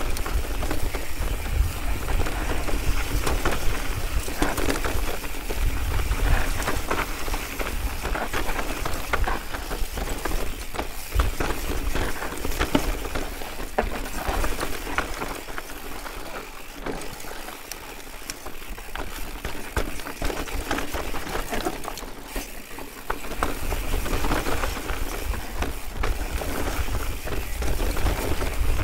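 Mountain bike clattering down a rocky trail: continuous rattling and knocking of tyres and frame over loose rock, with wind rumbling on the microphone. It eases off for a few seconds past the middle, then picks up again.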